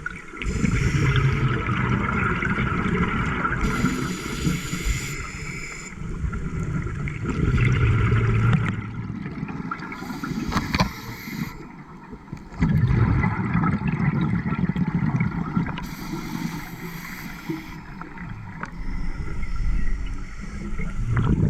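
Scuba diver breathing through a regulator underwater, heard about four times: each inhale is a hiss through the regulator, and each exhale is a rush of low, gurgling bubbles.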